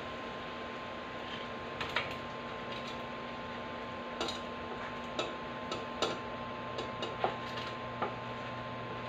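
A wooden spatula scrapes and taps as cooked shrimp are pushed from a frying pan into a stainless steel pot. About ten irregular clicks and knocks sound over a steady hum.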